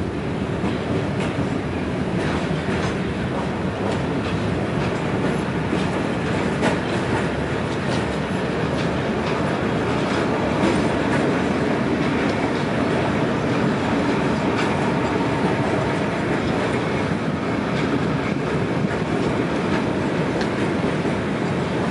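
Freight wagons of a long train rolling past: a steady rumble of steel wheels on rail, with scattered clicks of the wheels over the rail joints.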